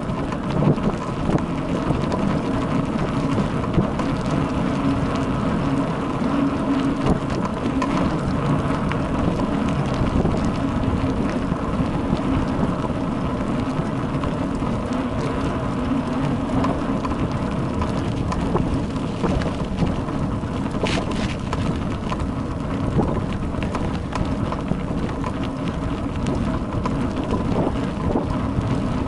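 Bicycle rolling over a rough, rutted dirt road, heard through an action camera riding on the bike: a steady noisy rattle of tyres and frame over the bumps, full of small knocks.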